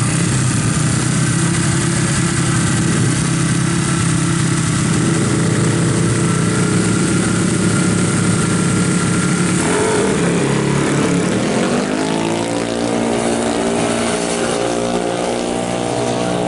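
Two motorcycle engines, a Honda Karisma running on its stock exhaust and a Yamaha NMAX scooter, run steadily side by side at the drag strip's start line. About ten seconds in they launch, and the engine notes rise in pitch as the bikes accelerate away.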